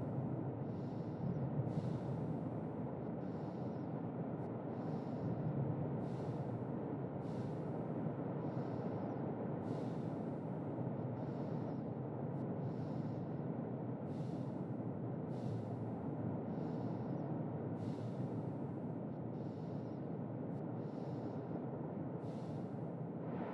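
Close, even breathing, in and out: soft airy breaths about one a second, over a steady low rumble of storm ambience.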